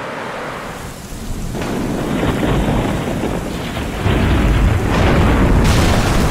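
A steady rush of water, then from about a second and a half in a thunderstorm: rain with deep rolling thunder that grows louder toward the end.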